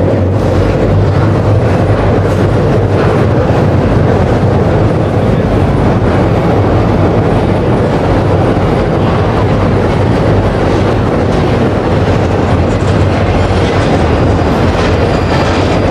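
Train crossing the steel elevated railway structure overhead: a steady, loud rumble.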